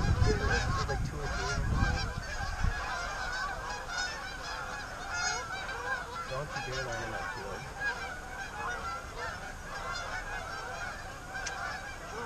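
A large flock of geese honking and calling together, many birds at once in a continuous chatter. A low rumble covers the first two to three seconds.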